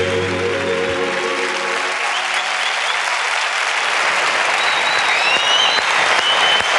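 Studio audience applauding, with a few short whistles near the end, as the song's last held chord dies away over the first few seconds.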